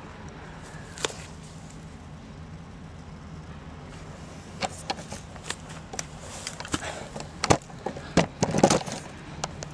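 Clicks, snaps and knocks of handling and movement on dry twigs and leaf litter, with the camera being moved. They come thick from about halfway, with a loud knocking flurry near the end, over a steady low background hum.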